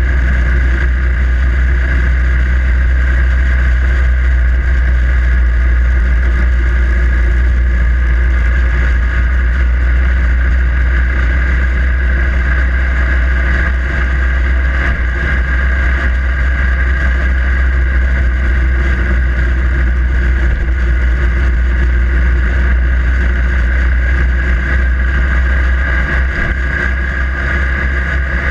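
Harley-Davidson Iron 883's air-cooled V-twin engine running steadily under way, with a strong low hum and an even level throughout.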